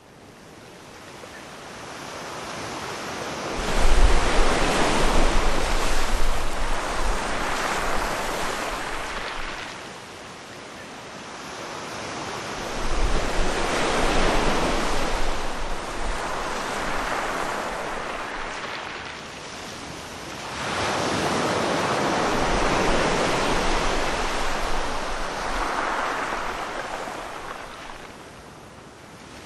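Sea surf: waves breaking and washing in, swelling and fading three times, with a low rumble as each one breaks.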